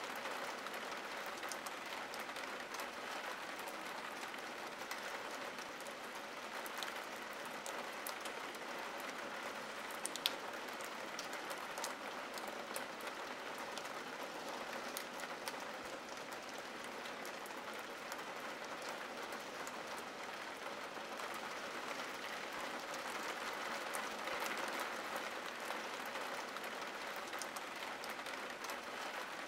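Steady rain falling on window glass, with scattered drop ticks and one sharper tick about ten seconds in.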